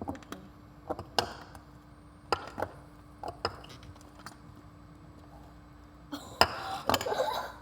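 Spoons knocking and scraping against bowls while slime is being stirred: scattered clicks and taps, with a louder, busier clatter near the end. A faint steady hum sits underneath.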